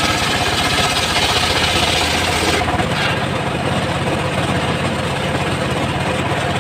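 Engine of a homemade circular sawmill running steadily with a fast low rhythm. A high hiss on top of it thins out about two and a half seconds in.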